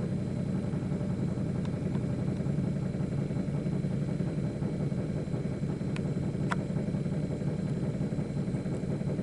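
Steady low mechanical hum, with a couple of faint clicks about six seconds in.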